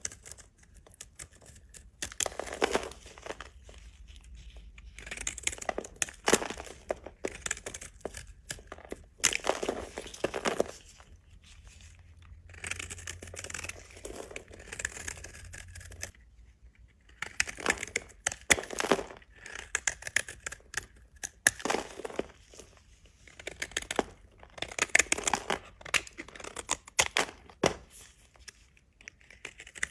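Knife cutting through dry bar soap: crunchy scraping strokes in bursts of a second or two, a few seconds apart.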